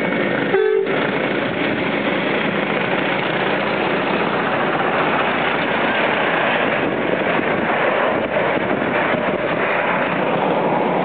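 A ride-on miniature railway train running, a steady noisy rumble, broken by a brief tone under a second in.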